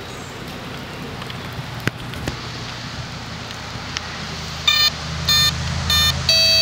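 Atomik Barbwire RC speed boat's electronic speed controller sounding its start-up tones as the battery is connected: three short beeps about two-thirds of a second apart, then a longer, lower tone near the end, meaning the boat is armed and good to go. A couple of small clicks come earlier.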